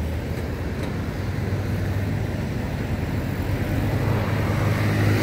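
A motor vehicle's engine running close by in street traffic, a steady low hum that grows gradually louder over a few seconds as it approaches.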